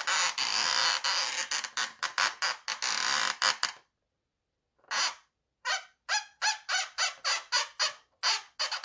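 Paint pen dragged across an inflated latex balloon, squeaking: a long stroke at the start, then a run of quick short strokes, a pause about four seconds in, then short squeaks about three a second.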